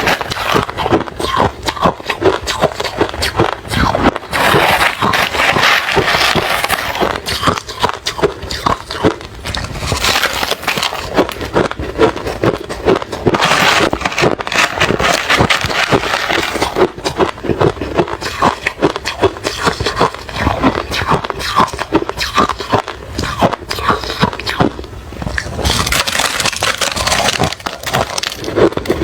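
Someone chewing refrozen crushed ice: a loud, dense, continuous run of crunches.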